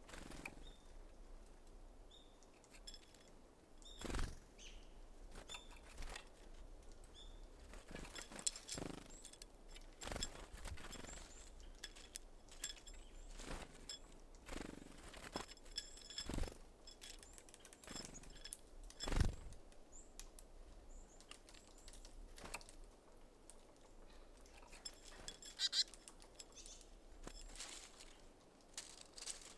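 Small birds at a feeder: a string of sudden wing flutters and knocks as birds land and feed, the loudest about four seconds in and again near the middle, with short high chirps between them.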